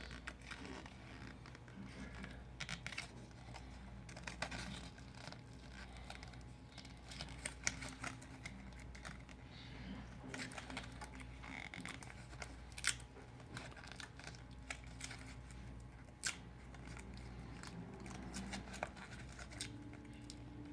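Faint scraping and crinkling of a business card being worked back and forth under a Samsung Galaxy S6's glued-down screen, loosening the adhesive, with scattered small clicks over a low steady hum.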